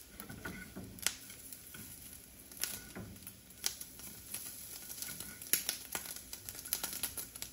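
Faint scattered clicks and light knocks, a few every second, over a quiet hiss: small handling noises in a small room.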